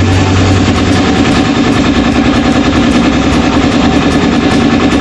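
A motor-driven machine running steadily and loudly, with a fast, even pulsing throb.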